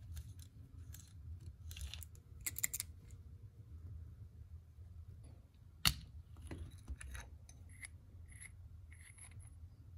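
Small metal chuck parts of a vintage Stanley egg beater hand drill being handled and taken apart: scattered light clicks and scrapes, with one sharp click about six seconds in. The chuck is inoperable, its jaw springs missing.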